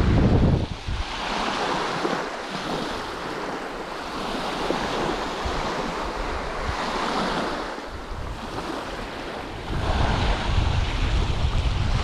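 Small waves washing in and out on a sandy beach, swelling and fading every couple of seconds. Wind rumbles on the microphone at the start and again for the last couple of seconds.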